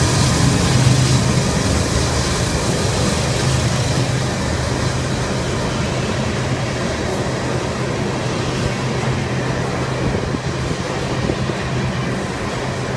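Double-stack container freight train rolling past close by: a steady rumble and rattle of the cars on the rails. A low engine hum fades out in the first few seconds.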